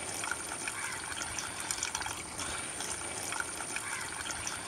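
Coconut milk pouring from a steel bowl into a large pot of thick beef masala, a steady liquid pour with a few faint ticks.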